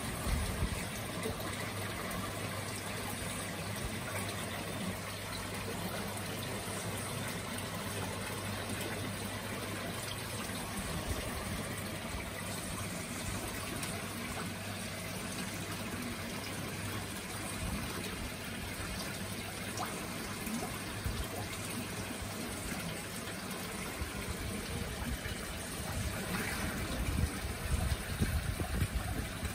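Garden koi pond water trickling and splashing steadily. A low hum lies under it for the first ten seconds or so, and there are a few sharper, louder moments near the end.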